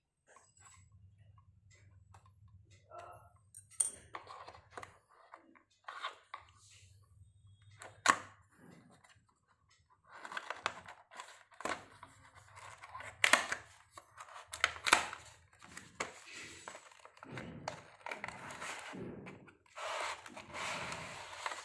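Cardboard earphone box being opened by hand: scattered clicks and scrapes as a thin blade works at the seal, one sharp click about eight seconds in. From about halfway there is denser rustling and scraping as the tape seal is peeled, and near the end the plastic tray is slid out of the cardboard sleeve.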